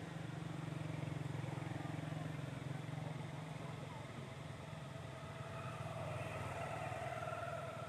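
A motor vehicle's engine running steadily with a low hum. A higher, slowly rising drone joins about five and a half seconds in.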